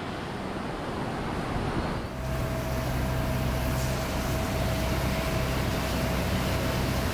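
Road traffic noise. From about two seconds in, a large vehicle's engine runs steadily close by: a low, even hum with a thin steady whine above it.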